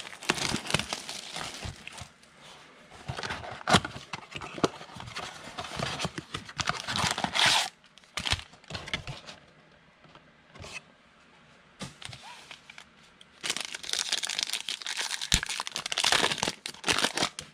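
Plastic and foil trading card pack wrappers being torn open and crinkled by hand, with the cards handled in between. There are two stretches of tearing and crinkling, the first in the first half and the second near the end, with a few light clicks and taps in the quieter gap between them.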